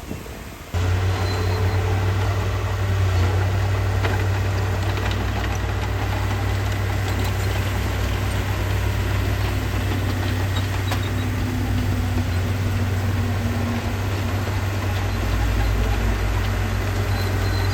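Diesel engine of heavy earthmoving machinery running steadily at a low, even pitch. It cuts in abruptly about a second in, and a deeper rumble joins near the end.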